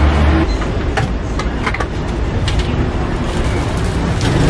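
Busy street noise: a steady low rumble of traffic, with scattered short clicks and clatter.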